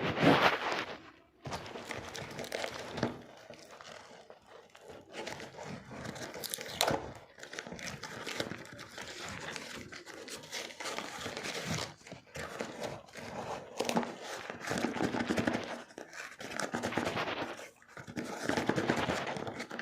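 Hands opening a delivery parcel: plastic and cardboard packaging crinkling, scraping and tearing in irregular rustles, with occasional sharp clicks.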